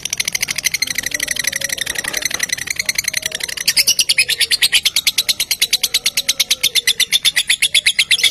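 Lovebird's 'ngekek': a long, rapid chattering trill of shrill notes at about ten a second, growing louder a little under four seconds in.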